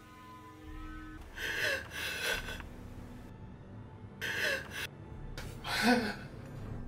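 A person gasping hard in distress: about four sharp, noisy breaths with short pauses between them, over a faint held music tone.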